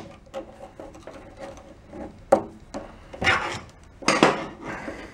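Screwdriver tips clicking and scraping against the stainless steel panel and the plastic rocker switch while prying at its retaining tabs: scattered clicks, a sharp one about two seconds in, and two short scrapes near the end.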